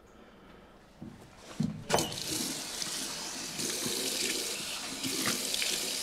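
A couple of knocks about two seconds in, then a tap running water steadily into a sink.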